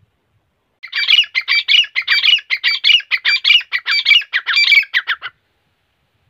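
Grey francolin calling: a loud, rapid run of repeated high-pitched notes, about four a second, starting about a second in and stopping after some four and a half seconds.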